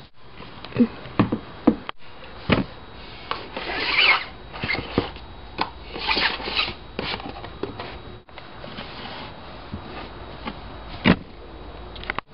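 Dolls and doll furniture being moved by hand: rubbing and scraping with a number of light knocks, broken by short silent cuts.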